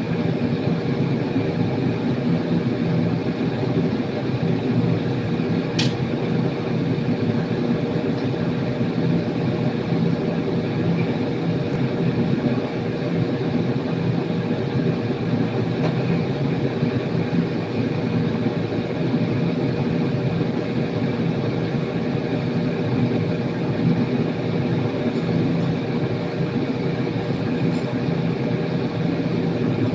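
Steady low roar with a constant hum from a gas stove burner and range hood while stir-frying in a steel wok, with one sharp metal tap about six seconds in.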